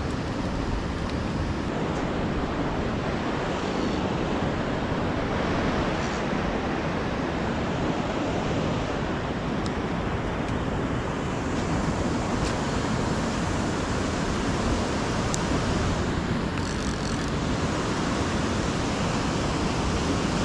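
Steady rushing of turbulent water pouring out through a spillway.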